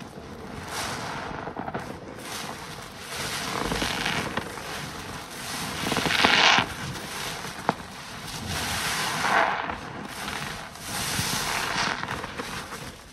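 Car wash waffle sponge full of suds squeezed and kneaded by gloved hands, with wet squelching and crackling foam coming in repeated swells, loudest about six seconds in. There is one sharp click a little past halfway.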